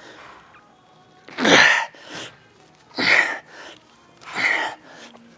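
A man's forceful, strained exhalations with each dumbbell rep: three hard breaths with a slight grunt, about a second and a half apart.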